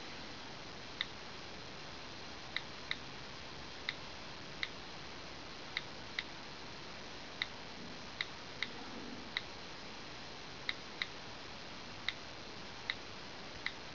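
iPhone 4 on-screen keyboard key clicks: about sixteen short, high ticks at uneven intervals as text is typed.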